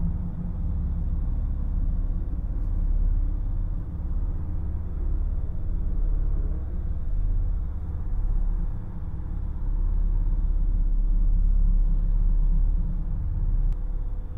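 A low, steady rumbling drone, strongest in the deep bass, with a faint sustained tone held above it: a dark ambient underscore.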